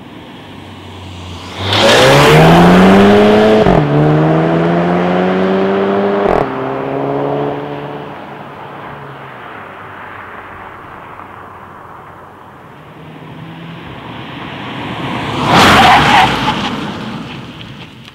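2016 Volkswagen Golf GTI Mk7's 2.0-litre turbo four-cylinder launched at full throttle, its revs rising hard and dropping sharply at two quick dual-clutch upshifts before the sound fades away. Near the end a second loud rush of tyre and road noise builds and dies away during a hard-braking run.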